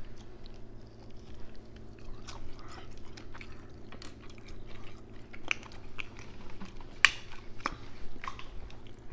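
Close-up chewing and the crackle of boiled king crab leg shells being broken apart by hand, with scattered sharp clicks, the sharpest about seven seconds in.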